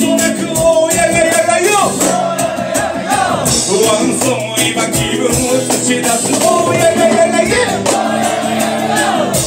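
Live reggae song: a male singer on a microphone sings long, wavering melodic lines over strummed acoustic guitar and a steady beat.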